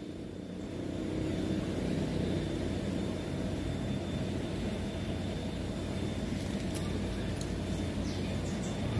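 Steady low rumble of a fast-flowing, swollen muddy river, with a few faint clicks near the end.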